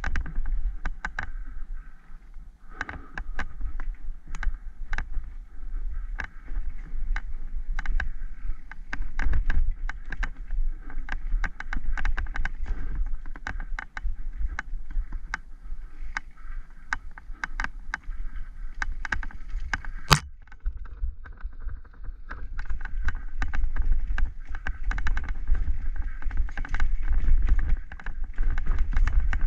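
Mountain bike riding fast down a rooty dirt trail: a constant low rumble of tyres and wind on the helmet camera's microphone, with frequent rattling clicks from the chain and frame over bumps. One sharp, loud knock about two-thirds of the way through.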